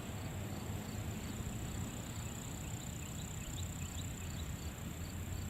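Outdoor insect sounds: a steady high drone with a faint run of short chirps, about two a second, beginning about two seconds in, over a steady low rumble.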